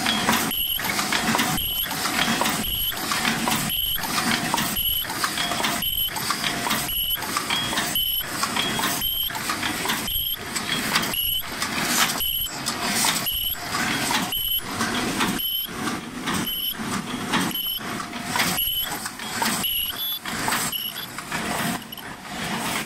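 Open-cam paper cup making machine with an ultrasonic heater running at about 65 cups a minute. Its mechanical cycle repeats evenly just under once a second, with a short high squeak in each cycle.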